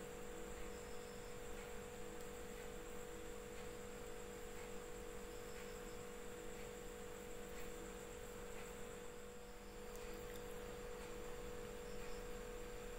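Steady electrical hum, a low tone with fainter overtones, over faint hiss, with a few faint scattered ticks.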